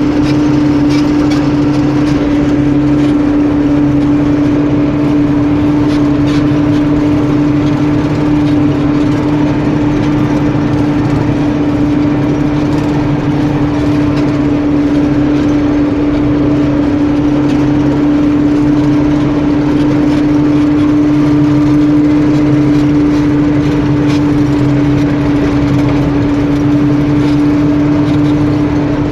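Farm harvest machinery's engine running steadily at a constant speed, with a strong, even hum.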